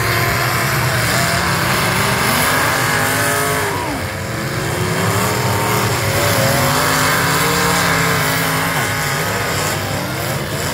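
Engines of several demolition derby stock cars running hard and revving together, their pitches rising and falling as the cars accelerate and ram each other.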